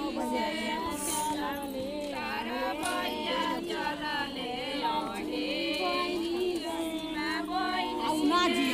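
Group of women singing a traditional folk song together without instruments, several voices overlapping.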